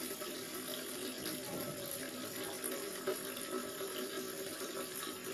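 Water running steadily from a garden hose into a watering container, filling it.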